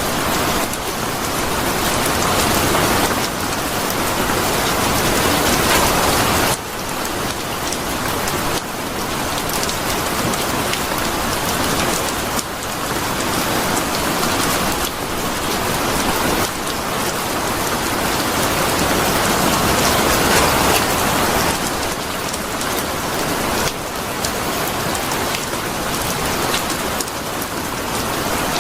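Steady heavy rain falling on a surface, a dense hiss full of fine drop patter, swelling and easing every few seconds.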